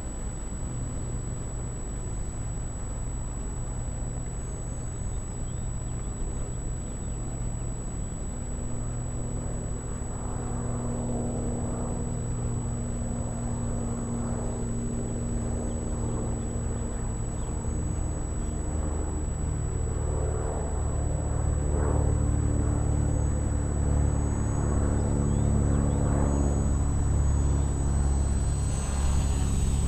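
Steady low rumble of a road vehicle's engine running nearby, with a steady hum over it, growing louder in the last ten seconds.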